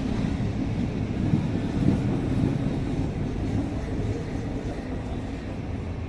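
Mumbai suburban electric local train running through the station: a steady low rumble that eases a little near the end.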